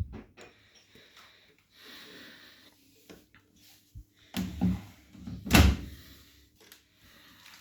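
Knocks and clicks from handling a Bosch WGA25202TR front-loading washing machine, like its door or detergent drawer being worked, the loudest a heavy thud about five and a half seconds in.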